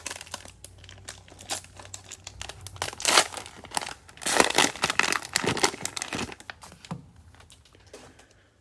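Cellophane wrapper of a trading-card cello pack crinkling and tearing as it is opened, loudest about three seconds in and again from about four to six seconds, dying down near the end.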